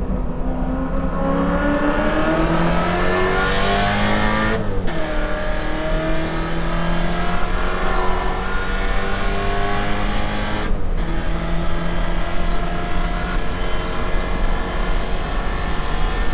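Holden VK Commodore's 308 V8 heard from inside the car, accelerating hard with the engine note climbing in pitch, broken by two upshifts, about five seconds in and again near eleven seconds, each followed by the revs climbing again.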